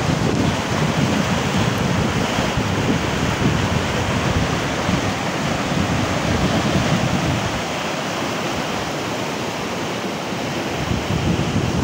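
Muddy floodwater rushing in a fast torrent, a steady loud rush of water, with wind buffeting the microphone; the low rumble eases about eight seconds in.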